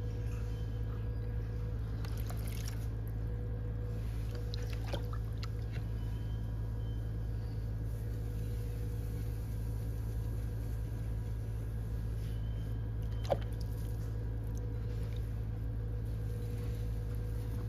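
Electric pottery wheel motor running with a steady hum, with faint wet sounds of water and clay being worked on it. A single sharp click comes about thirteen seconds in.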